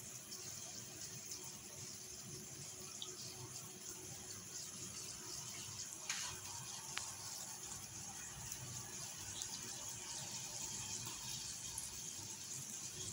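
Faint steady hiss of a gözleme cooking in a pan on a gas stove, with two short clicks about halfway through.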